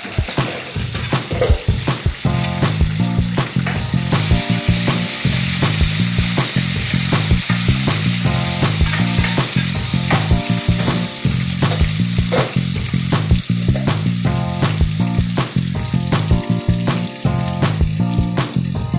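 Chicken curry frying and sizzling in a pan while being stirred, with frequent clicks and scrapes of the spoon.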